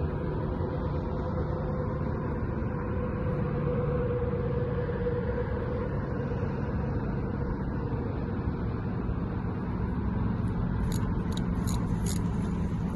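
Steady rumble of distant road traffic, with a few short clicks near the end.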